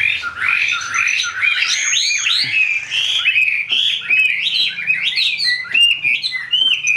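Chinese hwamei (Garrulax canorus) singing a rapid, unbroken run of loud, varied whistled phrases that rise and fall in pitch, with a few sharp clicks among them.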